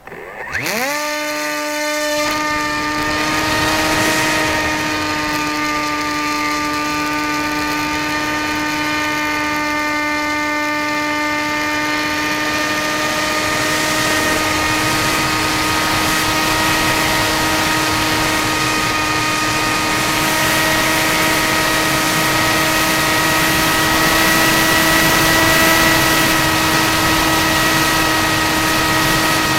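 Electric motor and propeller of a HawkSky RC airplane spinning up quickly in the first second, then running at steady throttle with a steady whine.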